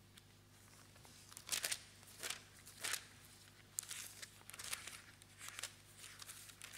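Thin Bible pages being handled and turned close to a lectern microphone: a series of short papery rustles and swishes, the loudest about one and a half to three seconds in, over a faint steady low hum.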